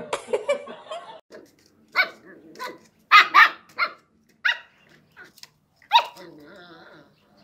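Puppy barking at a cat perched out of reach on a chair: a run of short, separate barks spread over several seconds, with two loud ones close together near the middle.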